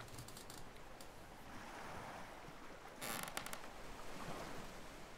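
Quiet ocean-wave ambience: a steady, soft hiss of waves that gets louder about three seconds in.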